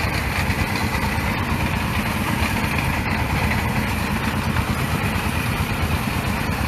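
Small stationary engine running steadily, driving a water-well drilling rig.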